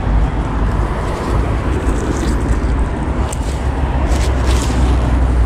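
Steady low rumbling noise, with a few short rustles as wet waterweed is pulled off a fishing magnet by gloved hands.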